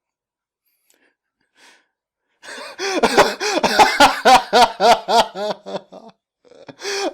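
Silence, then about two and a half seconds in, a high-pitched voice, most likely a female character's, starts speaking quickly for several seconds. Another stretch of speech begins near the end.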